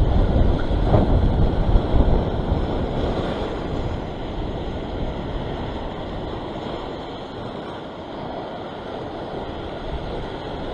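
Waves breaking and washing over a rock ledge, with wind buffeting the microphone. Loudest in the first couple of seconds, easing off through the middle.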